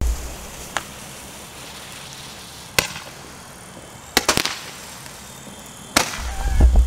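Roman candles firing: sharp pops at irregular intervals, with a quick run of several shots about four seconds in. A low rumble starts near the end.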